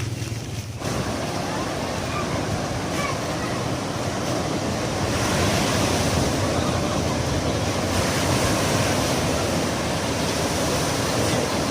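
Sea surf breaking and washing on a beach: a steady rush of noise that grows louder about five seconds in. It is preceded by a vehicle's low engine hum that cuts off within the first second.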